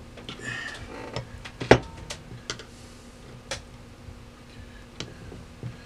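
Irregular sharp metallic clicks and a short scrape as a screwdriver blade pries at the metal parts of a Victor 77 gumball vending mechanism, bending a piece down. One click about a second and a half in is the loudest, with scattered fainter ones after it.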